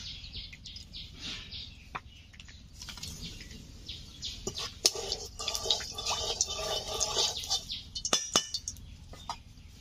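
Oil heating in a kadai, hissing and crackling with scattered sharp pops as leftover bits from frying spit in it. A bird calls in the background for a couple of seconds in the middle.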